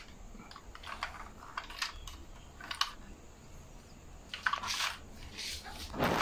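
Irregular clicks and light knocks from a 1:24 diecast BMW i8 model car being turned over in the hand. A louder knock comes near the end as the car is set down on the table.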